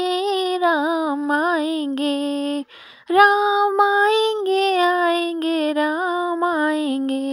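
A woman singing a Hindi devotional bhajan to Ram in long, wavering held notes, with a short break for breath about three seconds in.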